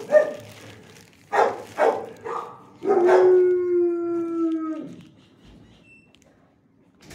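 A dog barks a few short times, then gives one long howl lasting about two seconds that drops in pitch as it ends.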